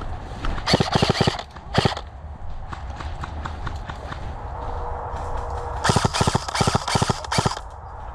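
Airsoft gunfire in short rapid bursts of clicking shots: one burst about a second in, a brief one shortly after, and a longer string of bursts near the end.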